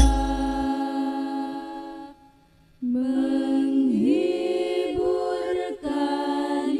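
A drum beat at the start under a held sung note that fades into a short pause about two seconds in; then a woman sings an ornamented Al-Banjari vocal line without the drums.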